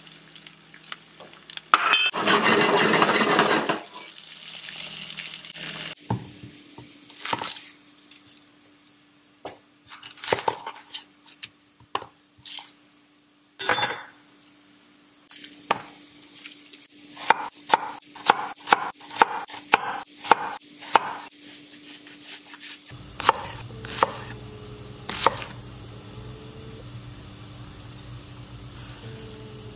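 Diced potatoes sizzling in a cast iron skillet, with a loud rush of sizzle about two seconds in. Then a kitchen knife knocks on a wooden cutting board as a shallot is cut, scattered at first and then in a quick, even run of chops in the middle. A steady hum sits under it all.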